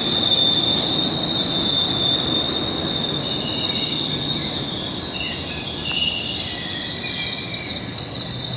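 GO Transit commuter train rolling through the station, its wheels squealing in several high, wavering tones over a steady rumble of wheels on rail.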